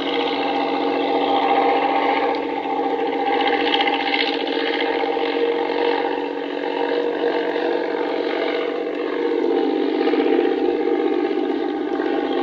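A vehicle engine running steadily with a rapid mechanical clatter.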